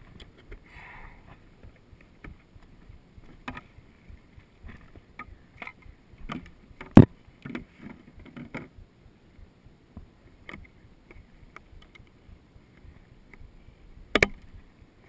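Water sloshing and lapping at the surface, with sharp knocks of hands against a hard plastic fishing float as it is handled. The loudest knock comes about seven seconds in, and another comes near the end.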